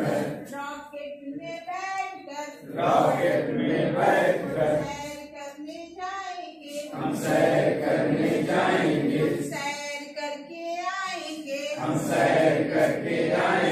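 Call-and-response singing of a Hindi action song: a woman sings a line alone and a group of adults sings it back together. This happens three times over.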